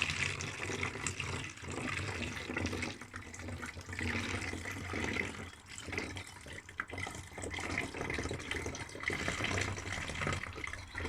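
Water being poured through a small funnel into a plastic bottle, the flow uneven, with a couple of brief lulls.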